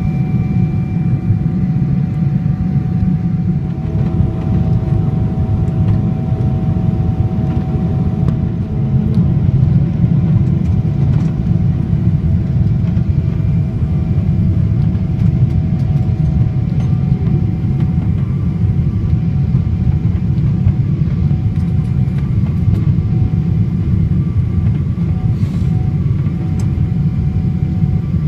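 Cabin noise inside a Boeing 777 on approach: the steady loud rumble of the twin jet engines and the airflow over the wing. A faint whine comes in about four seconds in and stops around sixteen seconds in.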